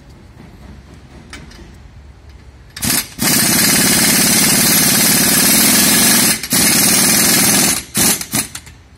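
An impact wrench hammering on the nut at the top of a strut's shock-absorber rod, held in a coil-spring compressor. It starts with a short burst about three seconds in, then runs continuously for about four and a half seconds with one brief break, and ends in a few short bursts.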